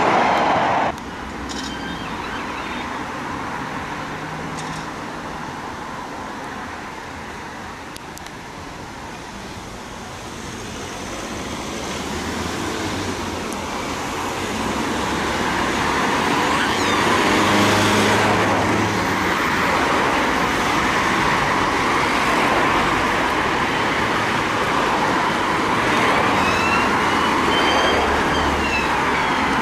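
Road traffic noise with an emergency ambulance siren approaching through it, growing louder over the middle of the stretch; rising and falling siren sweeps show near the end. A police siren cuts off abruptly about a second in.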